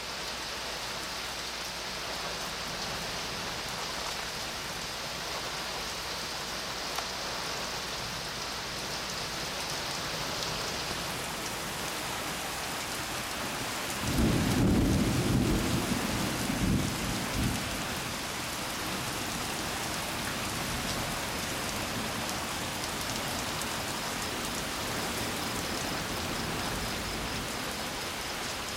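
Steady rain falling through a thunderstorm. About halfway through, a rumble of thunder lasts some three seconds and is the loudest sound.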